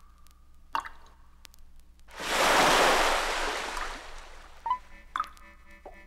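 Water drops plinking, each with a short ringing pitch, a few spaced about a second apart. About two seconds in, a wave of surf rushes in loudly and fades away over about two seconds, followed by more plinking drops near the end.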